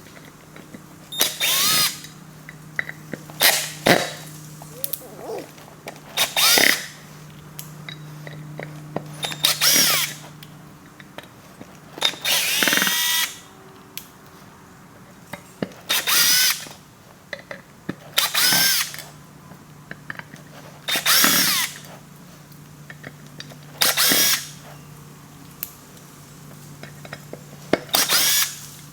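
Power drill/driver spinning out the screws that hold the back piece on an aftermarket forged steering wheel. It runs in about ten short bursts a couple of seconds apart, each winding up and down in pitch.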